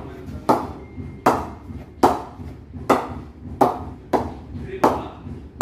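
Leather cricket ball bounced again and again on the face of an SS Gunther English willow bat, a crisp wooden knock about every three-quarters of a second with a short ring after each. This is a ping test of the willow: the sharper the knock, the better the bat's hitting power.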